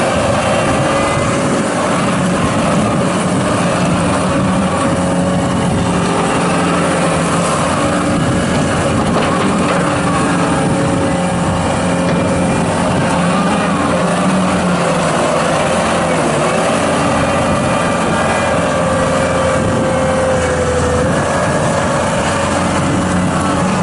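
John Deere 331G rubber-track skid steer loader running steadily under power, with a high whine over the engine that dips in pitch briefly about three-quarters of the way through.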